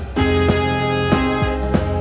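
Background music: an upbeat jazzy tune with guitar and horns over a steady bass.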